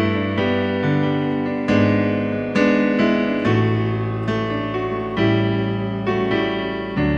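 Piano playing a slow, gentle instrumental passage: a chord is struck about once a second and left to ring and fade.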